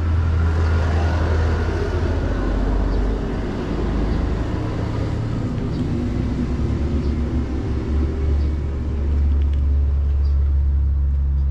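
Vehicle engine idling, a steady low rumble, most likely the bus waiting nearby.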